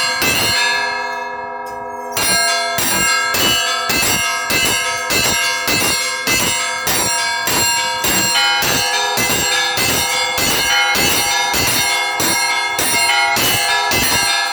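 Russian Orthodox church bells ringing: several bells of different pitch struck in a quick, even rhythm of about two strokes a second. Shortly after the start the strokes pause for about a second and a half while the bells ring on, then resume.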